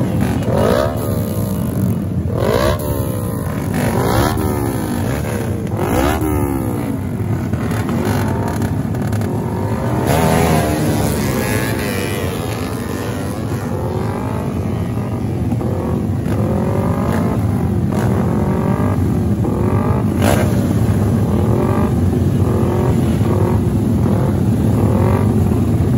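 Several modified motorcycle engines with aftermarket racing exhausts being revved, overlapping, their pitch repeatedly jumping up and falling back. The revs come sharp and separate at first, then thicker and quicker in the second half.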